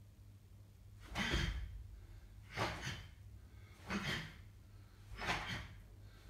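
A karateka's sharp exhalations during a kata, four of them about a second and a half apart, each timed with a technique.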